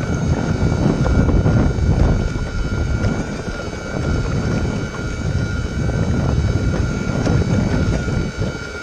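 Electric drive motors of an RT4 radio-controlled bait boat whining steadily as it runs out across choppy water. Heavy low wind rumble buffets the on-board microphone.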